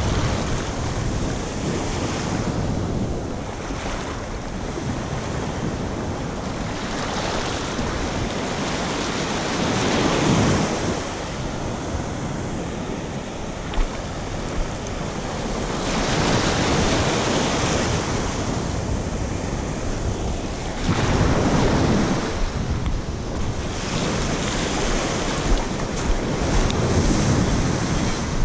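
Ocean surf washing in and out over a sandy beach in the shallows, swelling and easing every few seconds, with wind buffeting the microphone.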